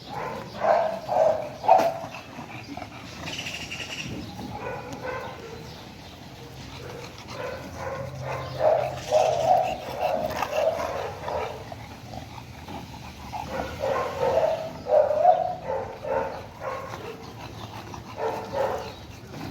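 Dogs barking in short bouts of quick, repeated barks, with pauses between the bouts.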